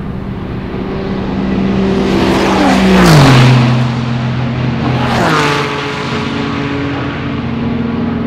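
Two GT race cars passing at speed. The engine notes grow louder on the approach. The first car goes by about three seconds in with a sharp drop in pitch and is the loudest moment, and the second passes a couple of seconds later with the same drop.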